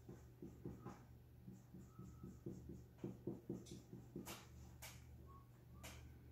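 Faint marker strokes on a whiteboard: a quick run of short scratchy strokes, several a second, as short lines are drawn one after another, with a few sharper clicks past the middle. A low steady hum runs underneath.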